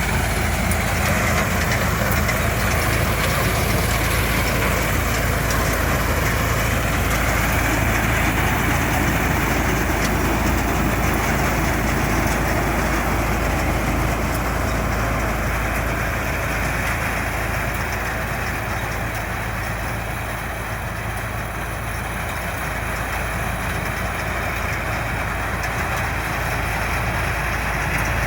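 Wheat harvester running steadily, a dense mechanical noise with a strong low engine hum. It eases off slightly about two-thirds of the way through, then picks up again.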